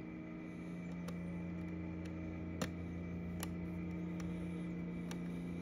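A few faint clicks of a small flat-head screwdriver working a screw on a plastic screw-terminal block as a wire ferrule is clamped in, over a steady background hum.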